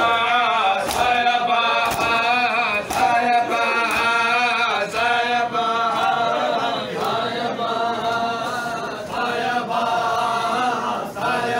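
Group of men chanting a noha (Shia lament) together in a sustained, wavering melody. In the first few seconds it is punctuated by sharp chest-beating slaps about once a second.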